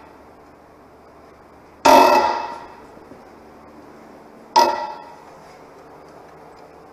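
Hammer blows on heavy steel, each a sharp clang that rings briefly: two strikes about three seconds apart, and a third right at the end, as large bolts are being worked loose on the dozer.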